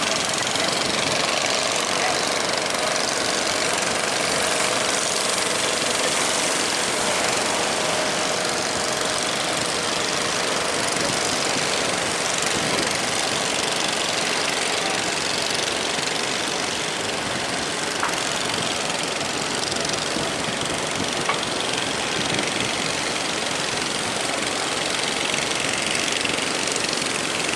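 A ship's engine running steadily under a loud, even rush of wind and sea noise.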